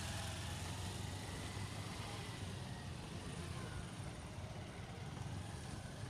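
Small motorcycle engine running steadily at low speed while the bike is ridden slowly through tight turns, a low steady hum with other motorcycles running in the background.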